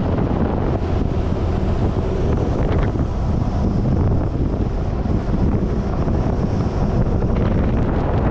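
Steady wind buffeting the microphone of a camera mounted on the outside of a moving four-wheel drive, over the rumble of the vehicle travelling on a dirt road.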